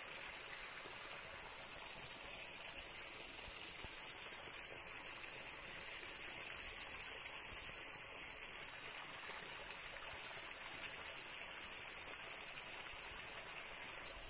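Steady, even hiss of running water, with no distinct events.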